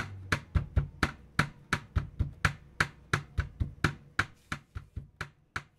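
A steady, rapid run of sharp knocks, about three or four a second, each with a short ring.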